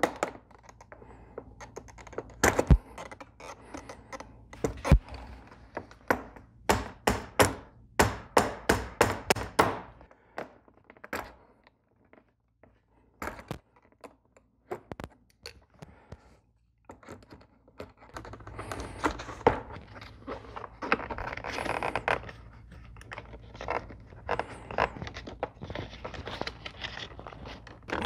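A small hammer tapping a punch to drive the pivot pin into a door handle in a car's plastic door panel: a run of sharp taps, several in quick succession, over the first ten seconds. After a few scattered clicks comes a stretch of rubbing and scraping as the parts are worked into place.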